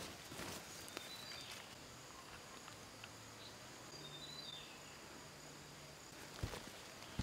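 Quiet forest ambience with faint insects and a few short, high bird chirps. In the first second or so there are a few soft scrapes of hands gathering loose soil, and near the end there is one dull thump.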